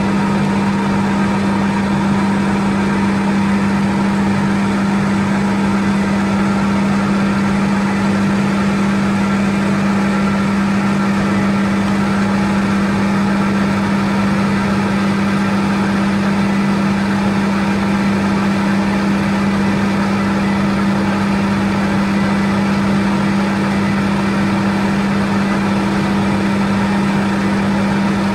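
Machinery of a biomass gasification plant running steadily: a loud, unchanging hum built on a strong low tone, with fainter higher tones over a rushing noise.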